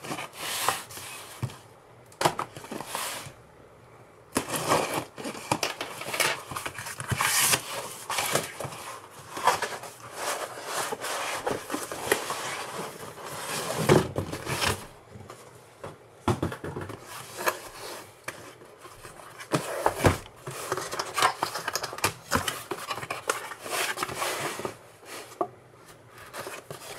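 Cardboard shipping box being opened by hand: packing tape cut and ripped, cardboard flaps scraping and folding back, and foam packing and a paper booklet rustling, with a few sharper knocks among the irregular rustles.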